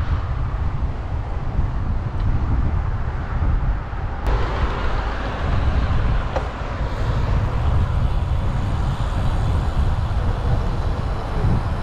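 Wind buffeting the microphone and road noise while riding along a road with traffic close by, a steady low rumble throughout. About four seconds in, a brighter hiss joins and carries on.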